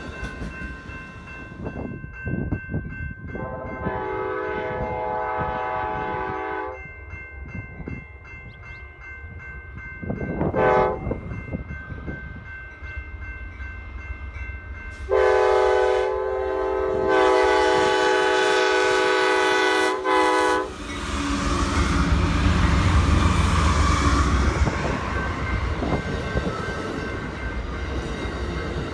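Amtrak passenger train with Superliner cars: the locomotive's horn sounds several times, a long blast about four seconds in, a short toot near eleven seconds, and two long blasts from about fifteen to twenty-one seconds. The train then passes close by with a steady low rumble of wheels on rail.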